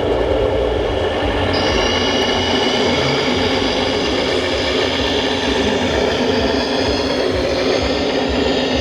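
RC model trucks and construction machines running, several steady electric-motor whines layered over a low rumble; a higher whine joins about one and a half seconds in.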